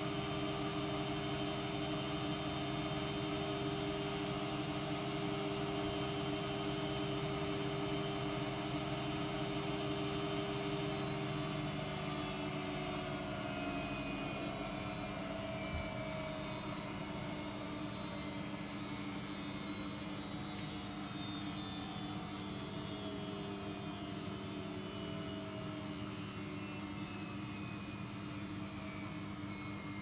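AEG Lavamat 50435 washing machine on its final spin: motor and drum whine steadily at high speed, then from about a third of the way in the pitch slowly falls as the spin begins to slow down.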